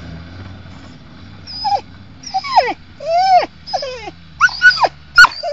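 A dog whining and yelping in a run of about six short, high cries that swoop up and down in pitch, starting about a second and a half in. Under them, the faint steady running of the Suzuki Samurai's engine.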